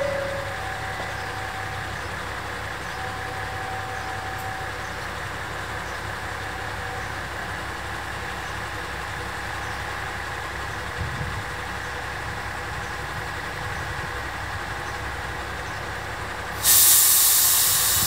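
TH2100 diesel railcar idling at the platform with a steady low engine hum. Near the end a sudden loud hiss of compressed air starts and then tapers off.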